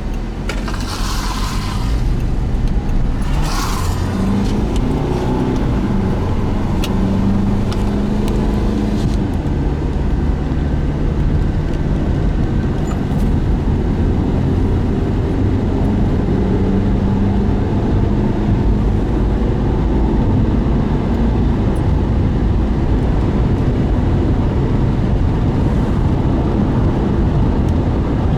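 Car driving at highway speed, heard from inside the cabin: steady engine drone and tyre rumble, the engine note shifting slowly. Two short rushing noises come in the first few seconds.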